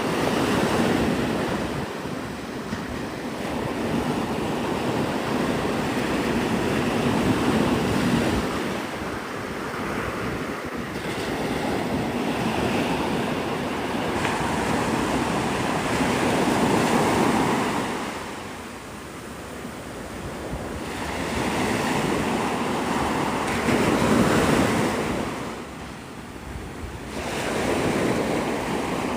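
Gulf of Mexico surf washing onto a sandy beach, swelling and easing every several seconds as waves break, with wind on the microphone.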